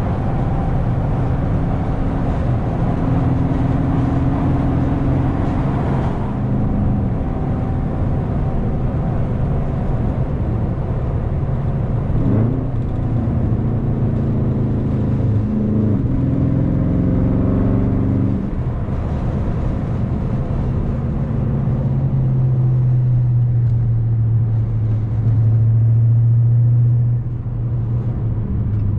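A 2020 Dodge Charger Scat Pack's 6.4-litre HEMI V8, mid muffler deleted, running under way. Its revs rise and drop sharply a few times about halfway through, then hold steady and louder before easing off near the end.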